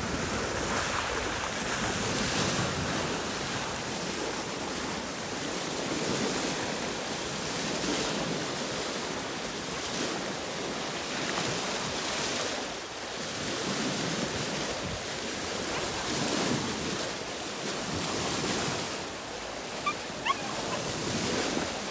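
Bow wave of a sailboat rushing and splashing along the hull, swelling and easing every couple of seconds. Two short sharp sounds near the end.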